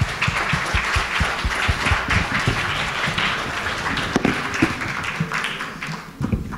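Audience applauding, fading out near the end, with scattered low thumps from handheld microphones being handled.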